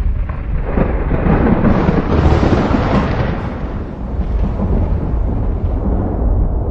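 Thunder rolling: a deep rumble swells about a second in, is loudest two to three seconds in, then fades back to a low, continuing rumble.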